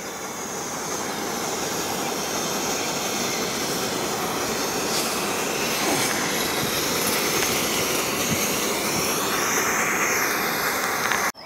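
Aircraft flying over: a steady jet-engine roar that slowly grows louder, its tone shifting near the end.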